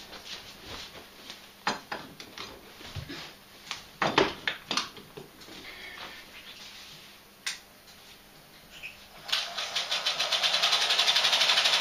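Scattered clicks and knocks from a stopped Pathescope 200B 9.5mm cine projector, then about nine seconds in it starts up and its film mechanism runs with a fast, even clatter that builds and stays loud.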